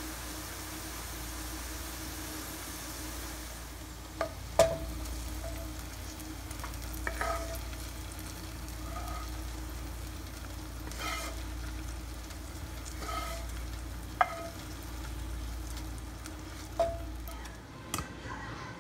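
Fried shallots sizzling in hot oil in a frying pan for the first few seconds. Then a cooking utensil knocks and scrapes against the pan and the soup pot about nine times as the crispy shallots are tipped into the soup. Each knock gives a short ringing clink, and the loudest comes about four and a half seconds in.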